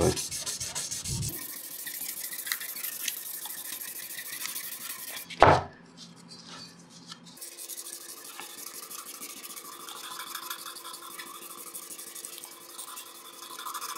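Fine-grit sandpaper rubbed back and forth by hand over the flat face of a steel channel, a light steady scratchy hiss. A single short knock about five and a half seconds in, after which the rubbing briefly drops away and then resumes.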